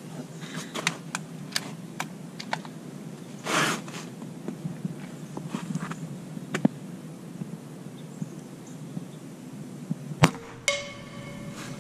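Benjamin Armada PCP air rifle firing a single shot near the end, a sharp crack, followed about half a second later by the distant frying-pan target ringing with a clear metallic tone: the pellet has hit the pan. Before the shot, scattered faint clicks and rustles of handling the rifle while aiming.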